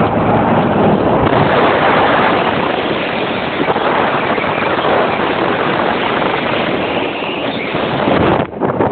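Loud, even rush of wind and road noise in a moving car, picked up by a phone's microphone, with a brief dip near the end.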